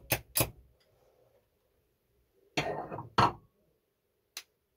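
Metal turbine parts being tapped and handled on a workbench: two quick sharp taps, then a short rattle followed by one hard knock about three seconds in, and a light click near the end.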